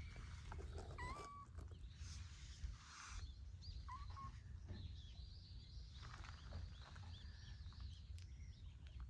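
Small birds calling faintly: a few thin whistled notes early on, then a run of quick, short high chirps in the second half, over a low steady outdoor rumble.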